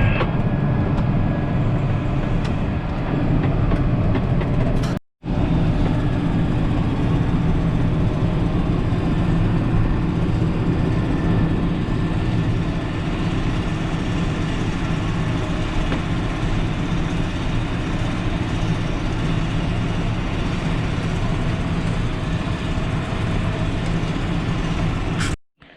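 Diesel farm machinery running steadily under load during silage chopping, with a deep, even engine note. The sound cuts out abruptly for a moment about five seconds in and again near the end.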